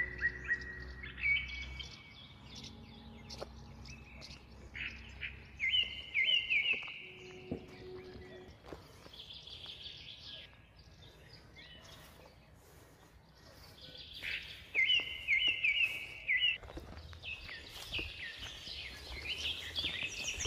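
A songbird singing several short phrases of quick, high notes, over faint outdoor background noise.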